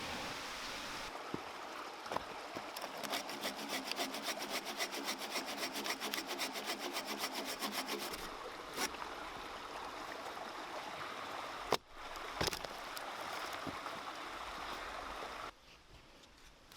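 Folding pull saw (Silky Gomboy Curve) cutting wood in quick, even strokes that stop about eight seconds in, followed by two sharp knocks. A mountain stream runs steadily underneath.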